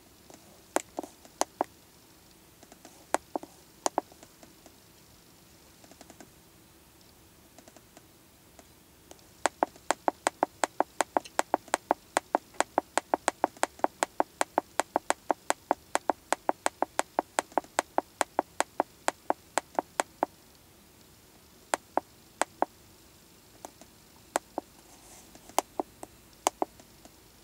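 Buttons on an Autel MaxiDiag Elite MD702 hand-held scan tool clicking as its menus are stepped through: a few separate presses, then a fast, even run of about five clicks a second lasting some ten seconds, then a few separate presses again.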